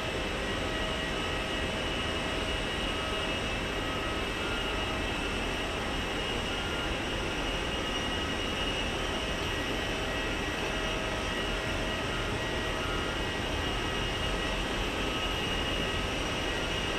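Steady jet turbine noise of aircraft at an airport: a continuous whine made of several high tones over a low rumble, holding level without rising or falling.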